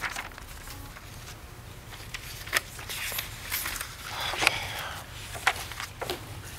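Papers rustling as a sheaf of photographs and documents is carried and handed over, with footsteps: scattered short clicks and rustles, including a longer rustle about four seconds in.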